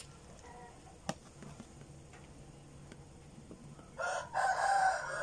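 A rooster crowing once, starting near the end: a loud, long pitched call that drops in pitch as it trails off. A single light click about a second in.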